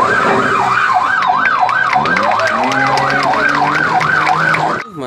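Police patrol car siren in a fast up-and-down wail, about two and a half sweeps a second, cutting off just before the end.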